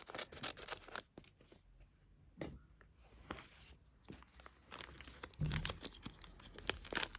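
Scissors snipping through a thin clear plastic packaging bag, then the bag crinkling and crackling in irregular short snaps as it is handled and pulled open.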